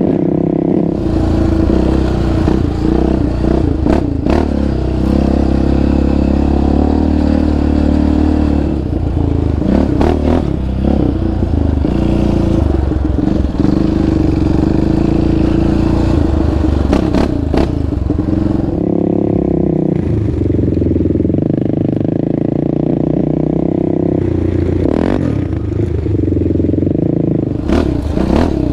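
Sport ATV engine running under throttle on a trail ride, its pitch rising and falling as the throttle changes, with several knocks and rattles from the machine going over bumps.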